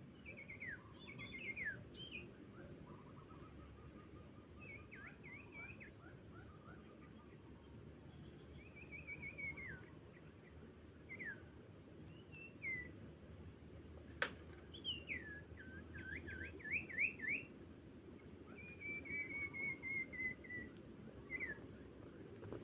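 Small birds, the sirpu being trapped, calling: short whistled notes that fall in pitch, some given singly and some in quick runs, with a longer chattering run about 19 s in. A single sharp click comes about 14 s in, over a faint, steady, high insect ticking.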